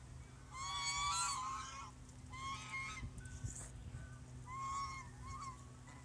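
White Chinese geese honking: a long, loud run of honks about half a second in, then several shorter honks. The uploader takes them for a little annoyed.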